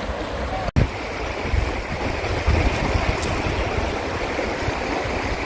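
Running water rushing steadily, with a momentary break in the sound under a second in.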